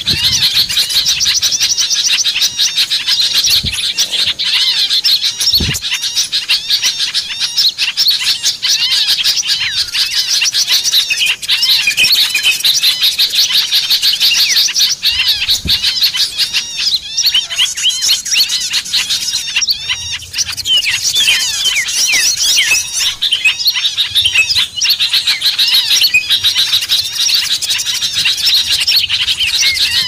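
A dense chorus of many small songbirds chirping and twittering over one another without a break. It is a mixed bird-lure recording of bulbuls and flycatchers, played to attract wild small birds.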